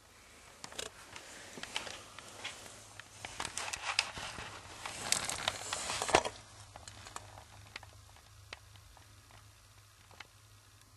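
Rustling and clicking handling noise, busiest for the first six seconds, then dying down to a few faint ticks, over a low steady hum. It comes from hands and camera moving against carpet and wiring in a car footwell.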